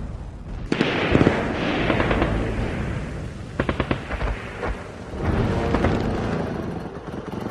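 Battle sounds of gunfire and explosions. A blast with a rumbling tail comes about a second in, a quick run of gunshots follows in the middle, and another rumbling blast comes near the end.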